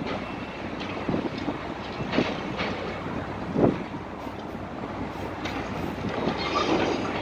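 Demolition of a concrete building frame by a high-reach excavator: scattered knocks and crunches of breaking concrete, the loudest about three and a half seconds in, over a steady rumble.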